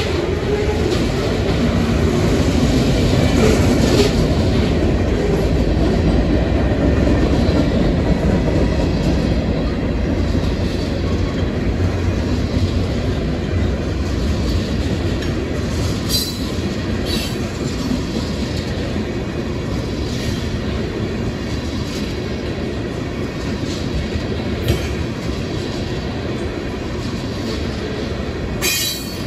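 Freight train cars (covered hoppers, then tank cars) rolling past close by: a steady rumble of steel wheels on the rail, with a few sharp clicks in the second half.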